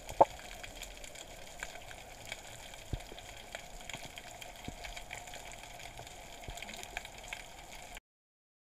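Underwater ambience picked up by a camera under water: a steady hiss with scattered clicks and crackles, and one sharp knock about a quarter second in. The sound cuts off abruptly near the end.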